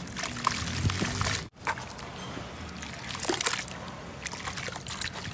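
Hands crumbling soft, dusty sand-cement chunks in a basin of water: wet sloshing and trickling with many small crackles as the pieces break apart. The sound drops out for an instant about one and a half seconds in.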